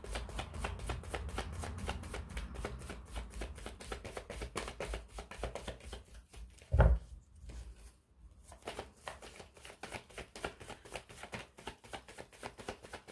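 Tarot cards being shuffled by hand, cards slipping off the deck onto the pile in a quick steady patter of small slaps, about five a second. One louder thump comes about seven seconds in.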